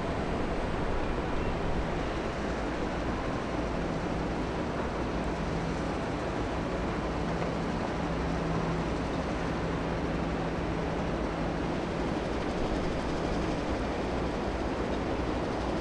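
Steady rumble of the passing ultra-large container ship Ever Alot, with a low machinery hum that breaks off briefly about two seconds in and fades out near the end.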